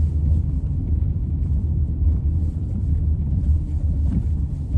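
Steady low road drone inside a moving car's cabin, the loud hum of new front winter tyres rolling on asphalt, with a couple of faint knocks near the end.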